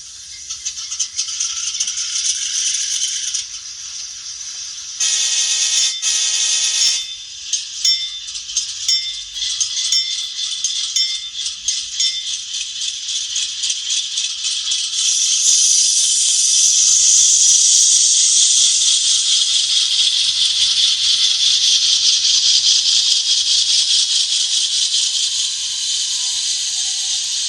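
Tinny diesel locomotive sounds from the sound-equipped N scale GE AC44C6M model's small onboard speaker: a rattly, clattering engine sound, with a two-part horn blast about five seconds in. The engine sound gets louder and fuller from about fifteen seconds in.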